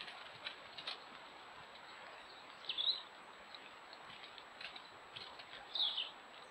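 Two short, falling bird chirps about three seconds apart over a steady hiss, with scattered light ticks and rustles in dry leaf litter as roe deer bound away. A faint, steady high whine runs underneath.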